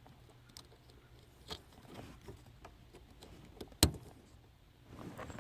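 Plastic automotive wiring plugs being handled and pushed together: faint rustling and small clicks, then one sharp click a little under four seconds in as a connector latches.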